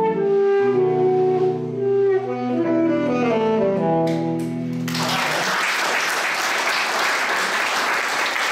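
Alto saxophone playing a slow melody of held notes over a low sustained accompanying note, ending about five seconds in; an audience then applauds for the rest.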